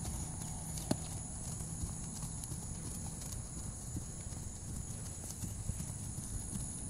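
A horse's hooves thudding on grass as it trots on a lunge line, with one sharp click about a second in.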